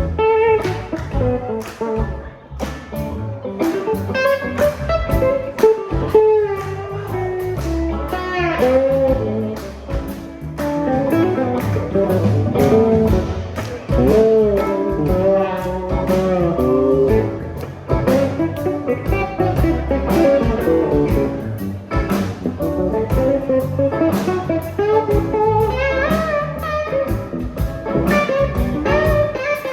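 Live band playing a blues-rock tune: electric guitar leads with bending notes over drums and bass.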